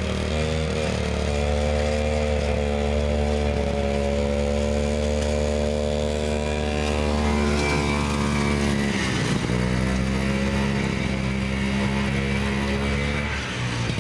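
1968 Scorpion Mk 1 snowmobile's 277 Sachs single-cylinder two-stroke engine running under way, steady in pitch, with the revs dipping briefly and picking back up about nine seconds in.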